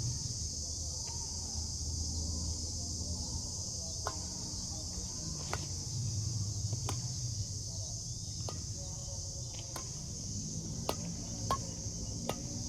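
Badminton rackets hitting a shuttlecock in a rally, sharp clicks about every second and a half, over a steady high chorus of insects and a low rumble.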